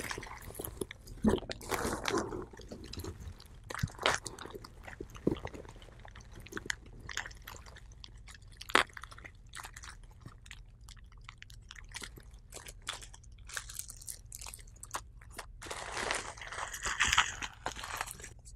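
Bubble wrap and a paper padded mailer being handled and unwrapped: irregular crinkling and crackling with scattered sharp clicks. The rustling is louder near the start and again near the end.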